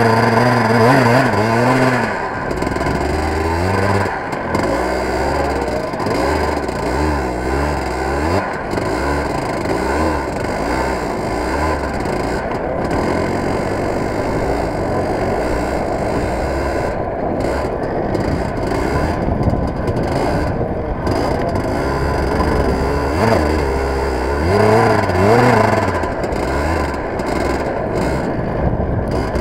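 Racing kart engine heard close up from on board, running hard with its pitch rising and falling repeatedly as the kart accelerates and slows through the corners of a snow track.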